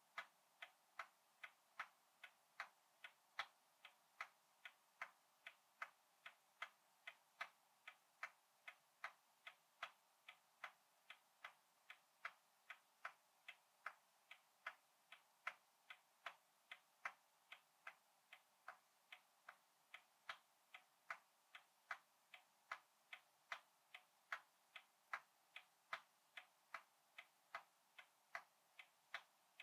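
A hundred-year-old clock ticking steadily and faintly, a little under two ticks a second, in an even tick-tock.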